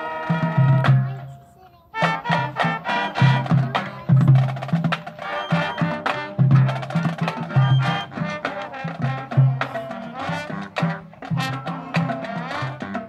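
Marching band of brass and drums playing. The music falls away to a short lull about a second and a half in, then the full band comes back in at about two seconds and plays on with a steady beat of loud low notes.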